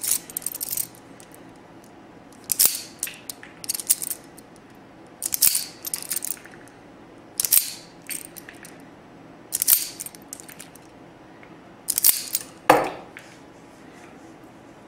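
Hand wire strippers snapping shut as insulation is stripped off 22-gauge wire ends: short, sharp clicks, about seven of them, every one to two seconds.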